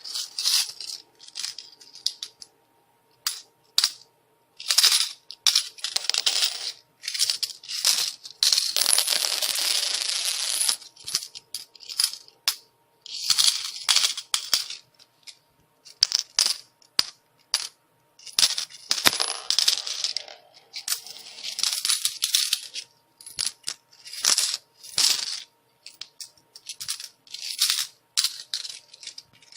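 Coins falling and clinking against each other in repeated bursts of jingling, some a quick scatter and some a longer pouring cascade, with short pauses between.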